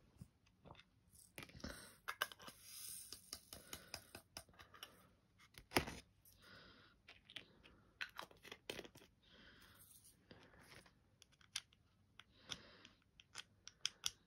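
Irregular light clicks, taps and crinkly rustling from handling diamond-painting supplies off-camera: small plastic resin drills and their plastic tray being handled, with a couple of louder knocks.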